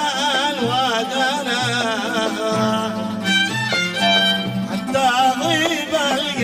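Yemeni Lahji folk music for the murakah dance: a wavering string melody over a steady low beat.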